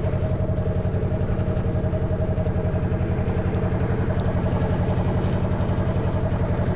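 Narrowboat's engine running steadily under way, with a fast, even beat.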